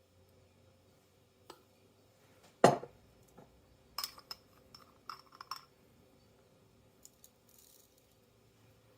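Kitchenware being handled on a counter: one loud knock, then a quick run of light, glassy clinks.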